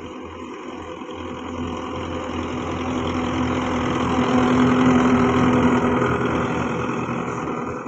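Belarus tractor's diesel engine running steadily as it hauls a heavily loaded trolley past, growing louder to a peak about five seconds in, then fading.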